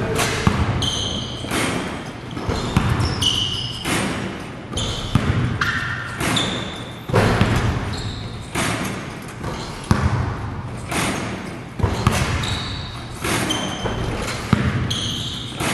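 Basketballs bouncing on a gym court, sharp uneven bounces about one to two a second, mixed with short high squeaks of sneakers on the floor.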